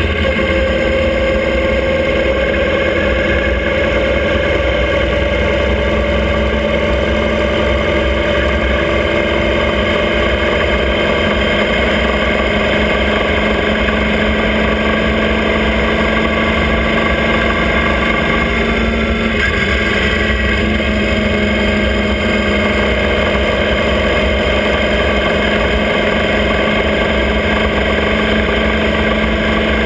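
Motorcycle engine of a sidecar outfit running at road speed, its note climbing slowly, with a short change in the note about two-thirds of the way through. Steady wind rumble on the exposed microphone underneath.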